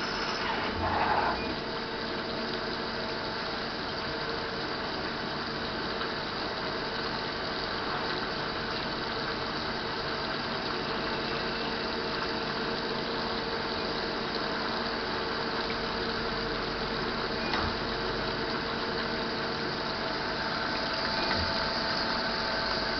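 Citizen Cincom E32 CNC automatic lathe running a cutting cycle: a steady machine hum with several steady tones, under the hiss of cutting coolant flooding the tooling and work. There are a couple of faint knocks, one about a second in and one late on.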